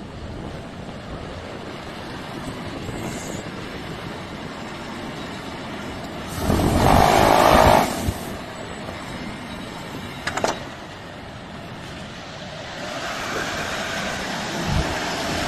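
Heavy machinery running, with a loud burst of noise lasting about a second and a half a little under halfway through, a few sharp clicks later, and the running noise growing louder near the end.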